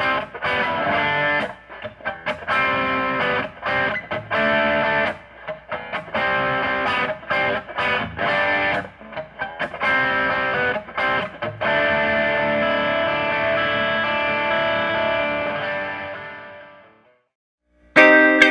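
Electric guitar with three EMG SA active single-coil pickups, played through an amp in short rhythmic chords with brief stops. Near the end one chord is left to ring and fades out, then playing starts again.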